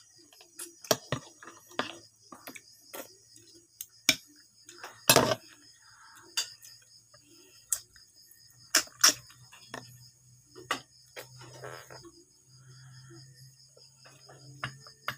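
Eating noises from cooked snails eaten by hand: scattered sharp clicks and clinks of shells and utensils on plates and bowls, the loudest a longer noisy burst about five seconds in. Crickets chirp steadily underneath.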